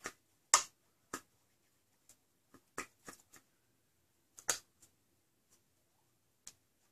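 Sharp clicks and light knocks of foam-blaster parts being handled and set down on a tabletop, about eight at uneven intervals, the loudest about half a second in.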